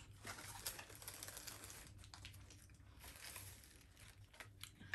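Faint crinkling and scattered small clicks as a Kinder Egg's wrapper and plastic toy capsule are handled, a little louder near the end.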